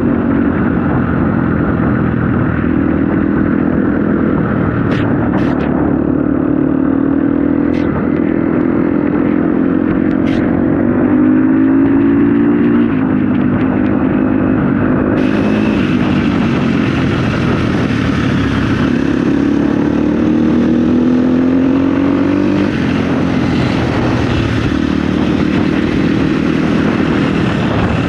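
Dirt bike engine being ridden on a trail, its revs climbing and dropping again and again as the throttle is worked. A few sharp knocks come in the first half, and a hiss joins about halfway through.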